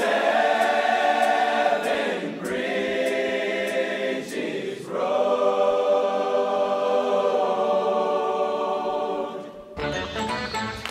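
Large all-male chorus singing a cappella, holding three long chords with short breaks between them. Near the end the singing stops and quick, plucked country-style music starts.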